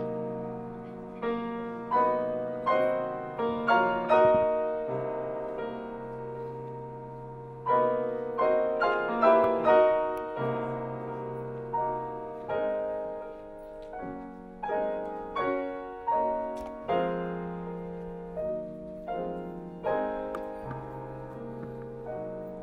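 Solo piano playing slow classical music: chords struck about once a second, each ringing on and fading, over held bass notes.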